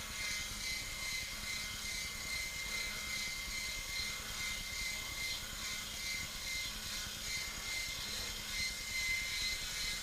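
Small electric gear motor running steadily with a thin, high whine, driving the model lowboy trailer's gooseneck lift mechanism.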